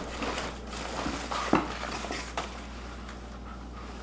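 Plastic wrapping crinkling and a cardboard box rustling as a plastic-wrapped pendant light is pulled out of the box, with scattered light clicks and knocks. It goes quieter for about the last second and a half.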